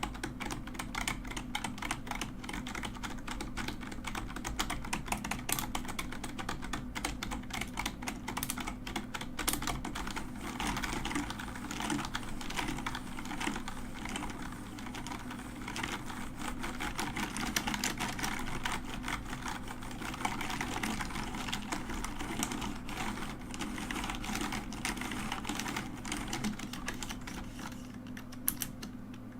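Mechanical keyboard keys being typed on fast and without pause, a dense clatter of clicks and clacks.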